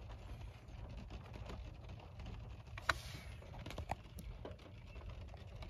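Faint low handling noise with a few light clicks, the sharpest about three seconds in and two more a second or so later.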